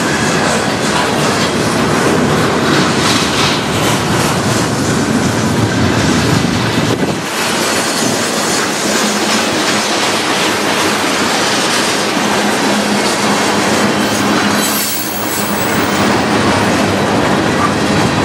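Freight cars of a mixed manifest train (tank cars, boxcars and covered hoppers) rolling past, a steady loud din of steel wheels on the rails, with short dips in loudness about seven and fifteen seconds in.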